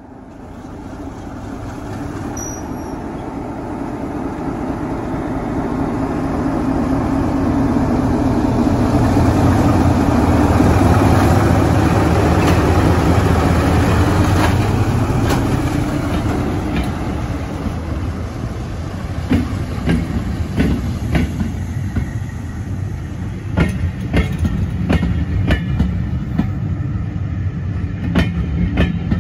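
Diesel locomotive passing under power, its engine growing louder to a peak about ten seconds in and then easing, followed by the carriage wheels clicking over rail joints as the train rolls by.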